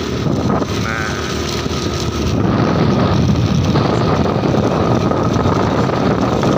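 Steady wind buffeting the microphone over the running and road noise of a moving vehicle, slightly louder from about two seconds in.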